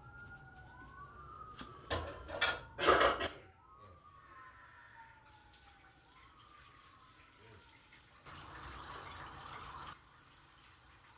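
A faint wailing siren, its pitch sliding slowly down and up, fading out about seven seconds in. Three loud knocks about two to three seconds in, and a steady hiss lasting under two seconds near the end.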